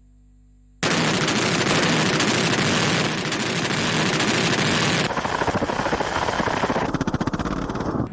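Sudden, very loud sustained roar of military hardware during a live-fire exercise, starting abruptly about a second in and breaking into rapid, even pulsing near the end.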